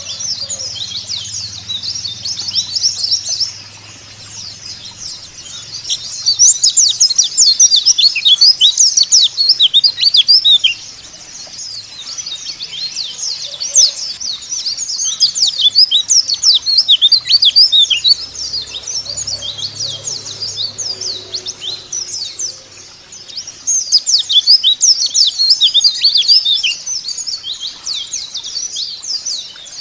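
White-eyes (pleci, Zosterops) singing a fast, high-pitched twittering song, in loud bouts of several seconds with softer twittering between; a lure recording meant to get caged white-eyes to sing.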